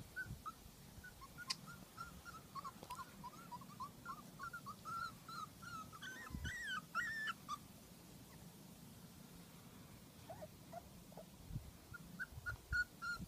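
Chesapeake Bay Retriever puppies whimpering: a string of short, high-pitched whines, loudest about six to seven seconds in, then falling away and starting again near the end.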